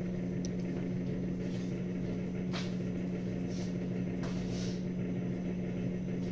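Steady low hum of a household appliance motor, with a constant drone. A few faint, brief swishes are heard over it.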